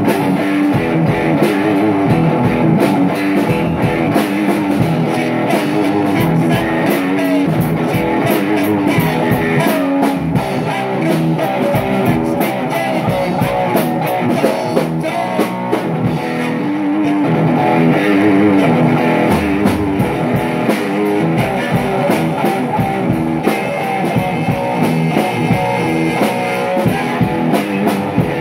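Rock music: a guitar played over drums, continuous and loud.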